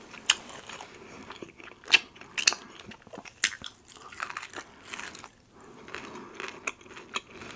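A person eating close to the microphone: irregular bites, chewing and crunching, with sharp little clicks scattered through.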